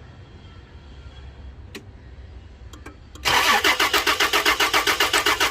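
A few light clicks, then a Toyota Land Cruiser's petrol V6 is cranked over by its starter about three seconds in, turning with an even, rapid beat without firing. This is the car's crank-but-no-start fault, with spark at the plugs tested good.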